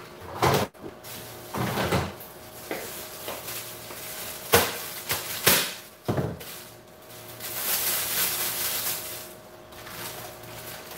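A plastic bag being handled and rustled, with several sharp knocks and clunks like a cupboard or drawer in the first half and a couple of seconds of crinkling past the middle.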